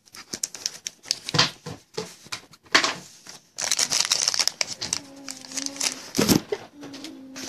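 Foil trading-card pack wrapper being torn open and crumpled by hand, a dense run of sharp crackles and crinkles.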